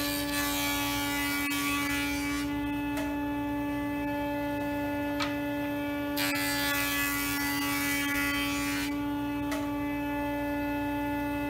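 Jointer running with a steady motor hum, as a figured cherry board is pushed across the cutterhead twice: each pass adds a hissing cut, the first from the start to about two and a half seconds in, the second from about six to nine seconds in.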